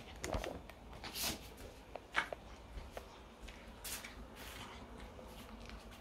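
Small toy dog chewing and gnawing a treat: irregular short crunches and mouth smacks.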